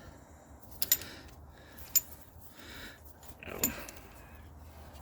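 Sharp metallic clicks of hand tools and brake parts being handled during a brake pad job: three clinks about a second apart, the last with a short scrape.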